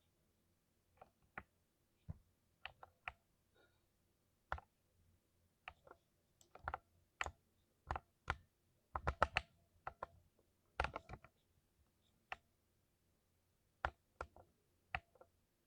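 Computer keyboard keys being pressed, single keystrokes at irregular intervals with a couple of quick runs of several keys a little past the middle.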